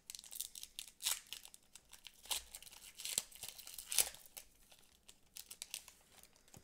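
Hands tearing open and crinkling the foil wrapper of a Pokémon trading card booster pack: a string of irregular sharp crackles, the loudest about four seconds in.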